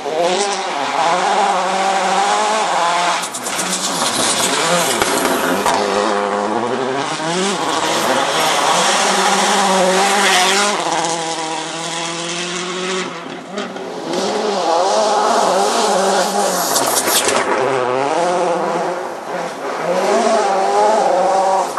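Citroën C4 WRC rally car's turbocharged four-cylinder engine revving hard, its pitch climbing and dropping again and again through the gear changes as it passes at speed on loose gravel. The tyres scrabble on the stones throughout.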